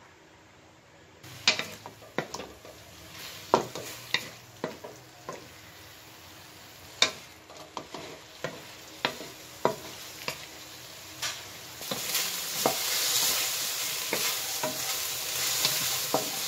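A wooden spatula scrapes and knocks irregularly against an aluminium wok as raw pork pieces are stirred. Frying sizzle builds up in the last few seconds as the pork, browning without added oil, starts to render its own fat.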